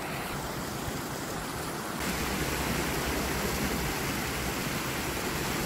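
Water rushing over a low river weir, a steady hiss that grows louder about two seconds in.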